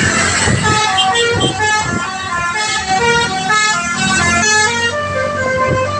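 Bus telolet horn, driven by its electric actuator unit, playing a quick melody of short stepped notes in a melodica-and-bansuri voice, over a low rumble.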